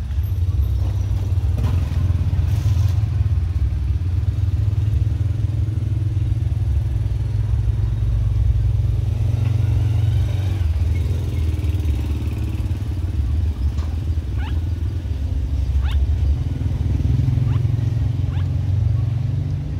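A steady low motor rumble, with a few faint short rising squeaks in the last few seconds.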